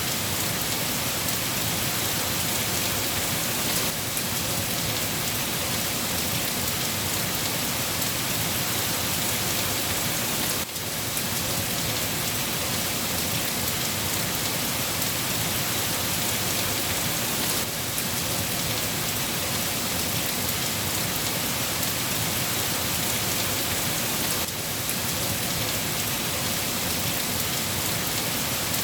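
Steady rain falling, a dense, even hiss with no letup, dipping briefly in level a few times.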